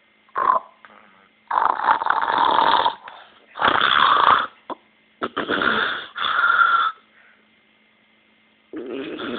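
A man snoring: a run of snores, each about a second long, then a pause of nearly two seconds before another starts near the end.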